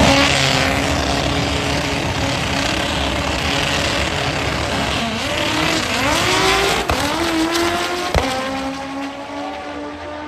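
Two drag-race cars' engines running loud at the starting line, then revving up in rising pitch as they launch, with two sharp cracks about seven and eight seconds in.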